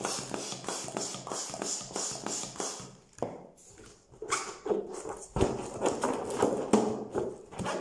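Hand balloon pump worked in quick strokes, pushing air into a 12-inch latex balloon for about three seconds. After a short pause, the inflated latex balloon is knotted and handled, rubber rubbing and creaking under the fingers.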